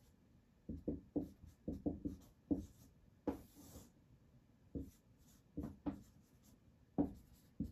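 Handwriting on a surface in a small room: a run of short, quick strokes, a longer scratchy stroke about three seconds in, then a few scattered single strokes.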